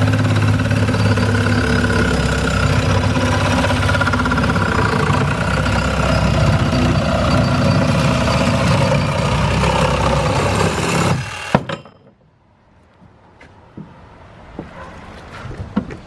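Milwaukee FUEL cordless reciprocating saw running steadily as its blade cuts through a square metal post. It stops suddenly with a clunk about eleven and a half seconds in as the cut goes through, followed by a few light knocks.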